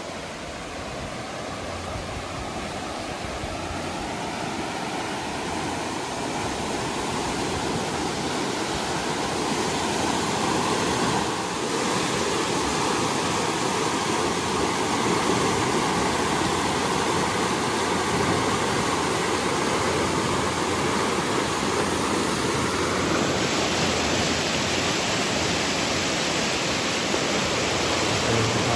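Big Spring's outflow rushing and churning as whitewater over rocks: a steady rush of water that grows louder over the first ten seconds or so, then shifts in tone near the end.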